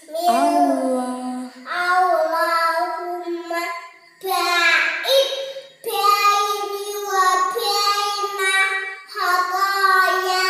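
A young girl's voice chanting Arabic prayer recitation aloud in a sing-song tone. It comes in phrases of one to three seconds with short breaths between them.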